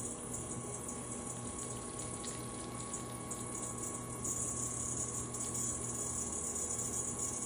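Wet hands sliding over a spinning lump of clay on an electric potter's wheel, a watery swishing hiss that gets louder about four seconds in, over the steady hum of the wheel running. The clay is being coned up and pressed back down while it is centred.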